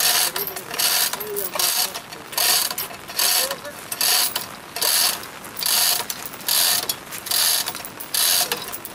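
Manual chain hoist (chain block) being worked to lift a concrete utility pole: the chain links clatter and the ratchet pawl clicks in repeated strokes, one to two a second, as the hand chain is pulled.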